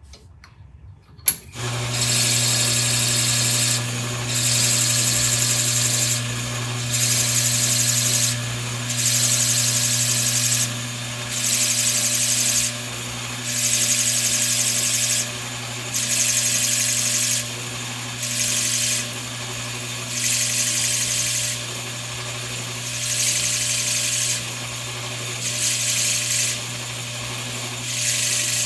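A power tool switched on with a click about a second in, then running with a steady hum. A harsh, hissing cutting sound swells and drops back in about a dozen repeated passes, roughly every two seconds, as the tool works the material.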